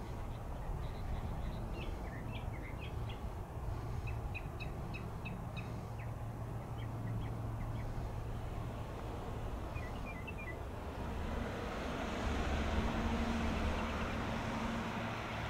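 Airbus A320's IAE V2500 turbofan engines on final approach: a low steady rumble that swells into a rising hiss with a faint steady whine from about eleven seconds in as the jet draws nearer. Small birds chirp in short bursts over the first ten seconds.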